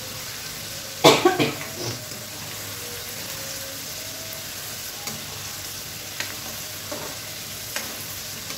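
Garlic cloves sizzling in hot oil in a metal kadai as a metal ladle stirs them. The ladle clatters against the pan loudest about a second in, with a few lighter clicks later.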